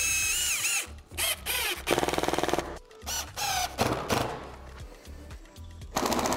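Cordless drill/driver driving screws into a wooden tabletop in several short runs. The motor's whine rises and falls, and one run about two seconds in is a fast, even rattle, like an impact mechanism hammering a screw home.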